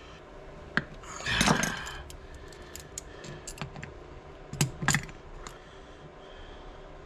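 Metal hand tools clicking and scraping on an aluminium carburetor body as needle-nose locking pliers work at a stuck throttle-plate screw. A short scrape comes about a second and a half in, and two sharp metallic knocks close together just before five seconds in.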